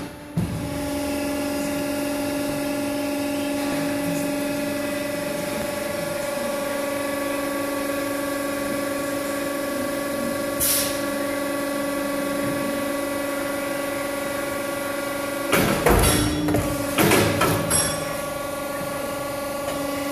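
SOCO SB63-Auto CNC mandrel tube bender running, its hydraulic pump humming steadily with a whine. A short hiss of air comes about halfway through, and a run of clanks and knocks about three quarters of the way in as the clamps and dies move on the stainless tube.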